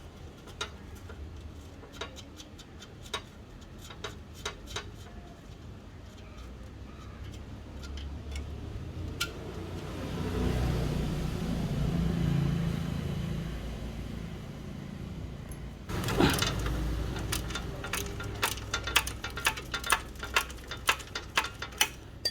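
Scattered metallic clicks and clinks of hand tools working on a rusty bicycle's nuts and bolts. A passing vehicle rises and fades in the middle. About two-thirds in there is a knock, then a quick run of clicks.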